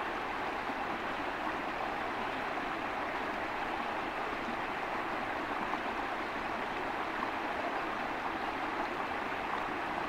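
Small stream rushing over rocks: a steady, even rush of water.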